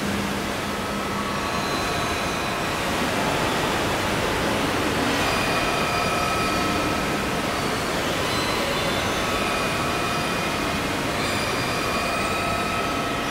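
Ambient electronic soundscape: a steady, dense noise wash with faint high sustained tones that swell and fade every few seconds.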